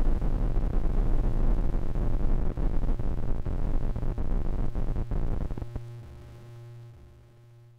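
Industrial synthesizer noise music: a dense, distorted wall of noise with a heavy low end cuts out about five and a half seconds in. It leaves a held synthesizer drone of a few steady tones over a low pulsing bass, which fades away.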